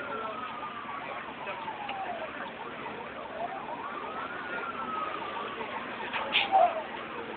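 Emergency vehicle siren wailing slowly: each cycle is a quick rise in pitch followed by a long falling tone, about four and a half seconds a cycle. A brief loud sound breaks in about six seconds in.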